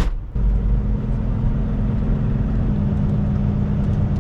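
Semi truck's diesel engine running with a steady low drone.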